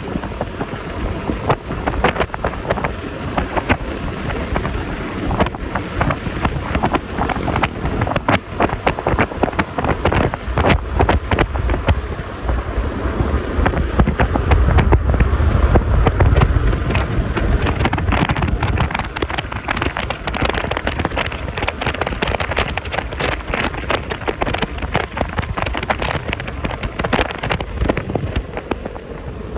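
Wind buffeting the microphone and road noise while riding a Yamaha Lexi LX 155 scooter: a crackling, gusty rush that swells louder about halfway through.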